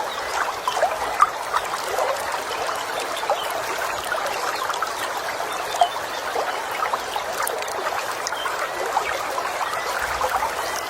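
Small stream trickling and babbling over stones: a steady, dense bubbling, with occasional faint bird chirps above it.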